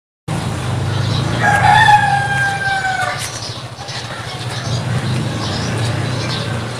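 A rooster crows once, a single long call of about a second and a half that falls slightly in pitch, over a steady low hum.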